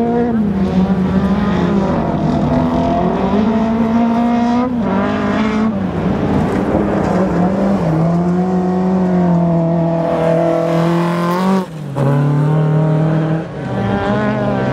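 Rallycross car engine running hard at high revs, its note stepping down and climbing again several times as it changes gear and lifts for corners, with two brief drops in loudness near the end.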